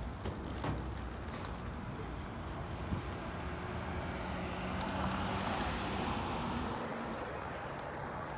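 Motor-vehicle traffic: a low engine hum comes in about three seconds in and swells over the steady traffic noise, then eases off before the end, as a vehicle passes.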